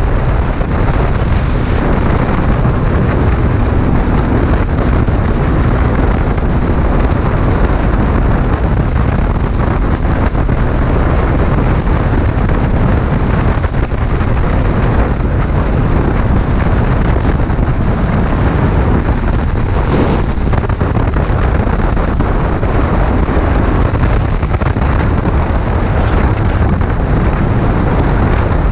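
Steady heavy wind rush on the microphone of a motorcycle riding at speed, with the motorcycle's running drowned in it.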